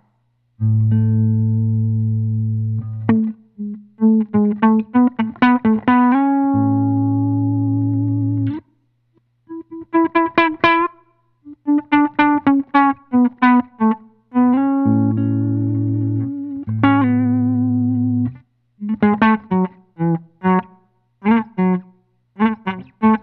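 Electric guitar playing through an effects pedal: long held chords over a sustained low note, broken up by runs of short picked notes with brief pauses between phrases.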